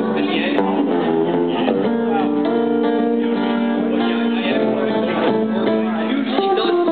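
Music led by strummed acoustic guitar, with several long held notes sounding under it.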